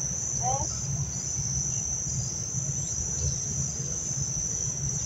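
Insect chorus with a steady, unbroken high-pitched trill, over a low rumble.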